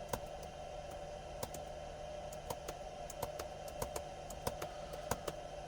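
Computer keyboard being typed on: irregular key clicks a few times a second over a faint steady hum.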